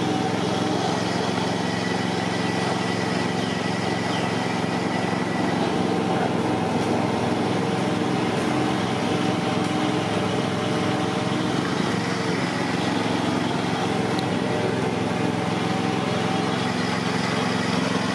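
A small engine running steadily at a constant speed, an even drone that does not change.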